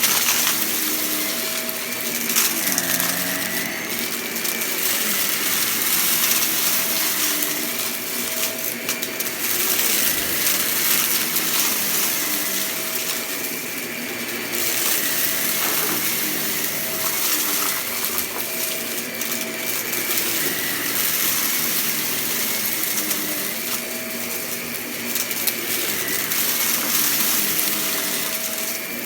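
Vacuum cleaner running over the floor, its motor pitch dipping and rising again and again, with crackling and rattling as crunchy debris is sucked up.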